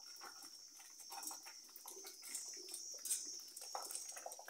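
Thick pigeon-pea sauce bubbling in a clay pot over a wood fire as a wooden spoon stirs it, with soft, irregular pops and plops. A steady high hiss runs underneath.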